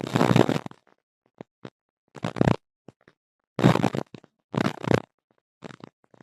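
Harsh, crackling bursts of noise that cut in and out several times, with dead silence between them: the unexplained interference noise picked up in a tablet's audio.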